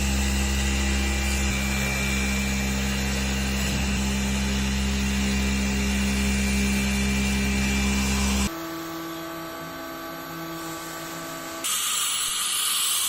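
A woodworking machine's motor running steadily under power with a constant pitch. It cuts off abruptly about eight and a half seconds in, leaving a quieter hum, and a hissing machine noise starts near the end.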